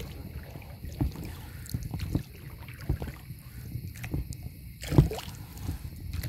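Paddling a small boat on a lake: paddle strokes in the water, a low knock or splash about once a second, the strongest about five seconds in.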